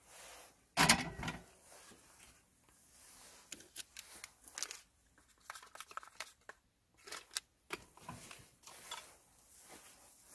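A stainless steel kettle set down into a cardboard box with one loud clunk about a second in, followed by light rustling and scattered clicks of handling around the box.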